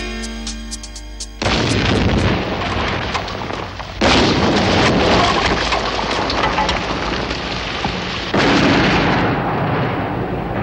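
Music is cut off about a second in by a sudden loud explosion, and two more blasts follow about four and eight seconds in, each trailing off in a long noisy rumble.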